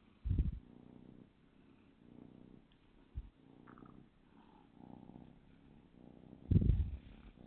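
Calico kitten purring while being stroked, the purr swelling and fading every second or so. Two loud low bumps cut in, about half a second in and again near the end.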